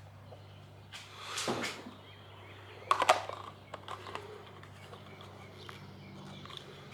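Plastic sprayer parts and soap bottle being handled: a short rustle, then a sharp clatter about three seconds in and a few small clicks, over a steady low hum.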